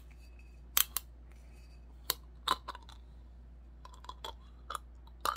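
Screw cap of a green glass bottle being opened with the teeth: a string of irregular sharp clicks and cracks as the teeth grip and twist the cap.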